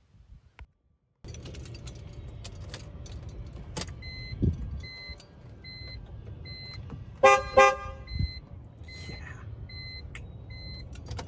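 BMW E46's horn sounded twice in quick succession, two short blasts, which tests the horn contact through the newly fitted steering wheel and airbag. A dashboard warning chime beeps steadily under it, with a low rumble and a few clicks and thumps.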